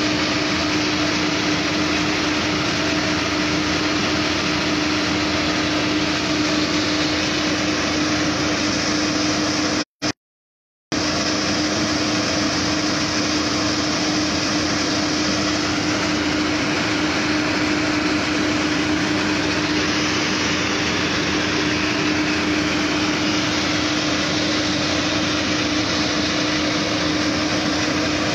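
Fire engines running steadily: a constant droning hum under a steady hiss. The sound cuts out completely for about a second near the middle.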